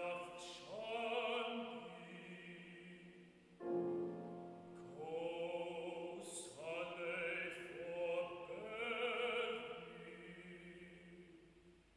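Baritone singing an art song with grand piano accompaniment. The voice sings several sustained, wavering phrases; about four seconds in the piano strikes a new chord, and the sound dies away near the end.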